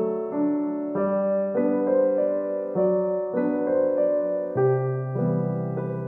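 Background music: a gentle solo piano piece playing a slow, steady run of notes.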